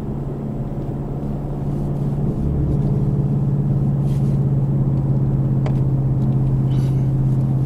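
Steady low drone of a car driving at about 50 mph, engine and tyre noise on the road, heard inside the cabin. It grows a little louder about two seconds in.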